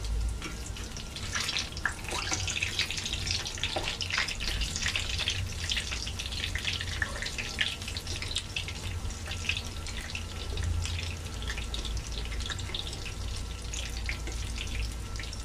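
Hot oil sizzling and crackling steadily as a panful of dahi bara batter fritters deep-fries.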